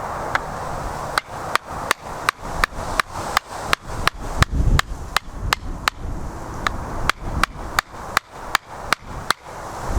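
Rapid, regular blows of a tool on wood, about three a second, starting about a second in: the end of a wooden plank being shaped to a point.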